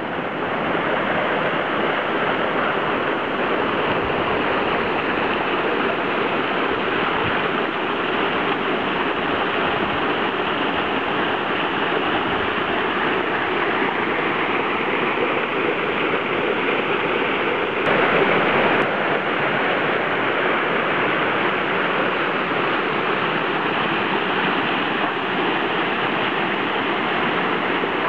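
Steady rushing of a small forest stream tumbling over rocky cascades and small waterfalls. It gets briefly louder a little past the middle.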